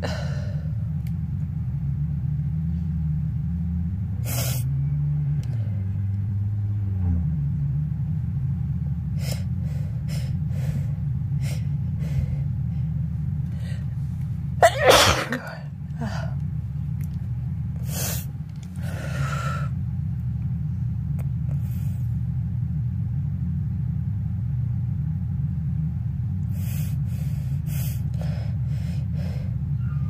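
A person sneezes once, loudly, about halfway through, with short sniffs and breaths before and after, over a steady low hum. It is a dust-triggered sneezing fit from dusting without a mask.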